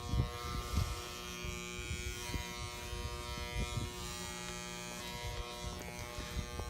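Electric hair clippers running with a steady buzz, with low bumps of handling near the start. They are being used on a cat's thick coat and are not very powerful.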